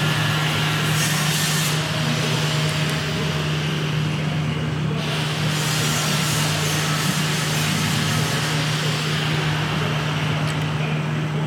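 A steady low hum over an even hiss as a 20-inch bandsaw wheel is spun slowly by a drive coupled to its rim, turning past a dial indicator to check runout. The hiss swells a little about a second in and again around five to seven seconds.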